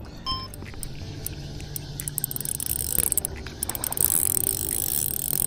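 Spinning reel cranked under load, its gears and ratchet clicking steadily as line is reeled in against a hooked fish, with a short beep just after the start.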